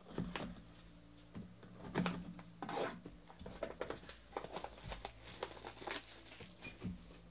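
Plastic shrink-wrap being torn and crinkled off a sealed trading-card box, with irregular crackles and light knocks of the cardboard box being handled; the loudest rips come about two and three seconds in.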